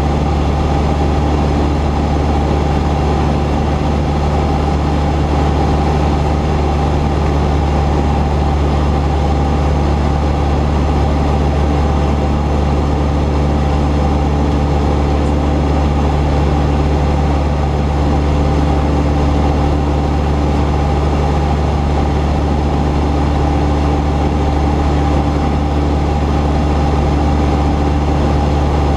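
Cessna 172's piston engine and propeller running at a steady speed: a loud, even drone with strong low tones that does not change.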